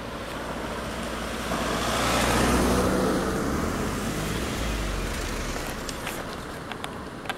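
A small hatchback car driving past close by: its tyre and engine noise swells to a peak about two to three seconds in, then fades as the car slows and pulls up.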